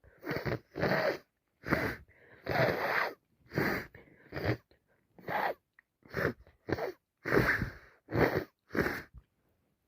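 A person with a heavy wet head cold sniffling and breathing hard through a congested, runny nose: a short, noisy burst every half second to second.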